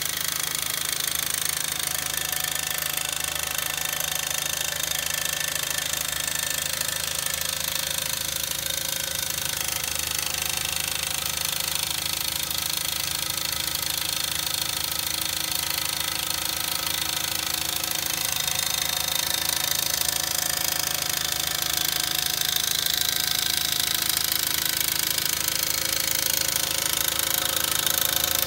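Mamod TE1A model steam engine running steadily on a gas burner, its small cylinder knocking over a constant hiss. It grows a little louder in the second half.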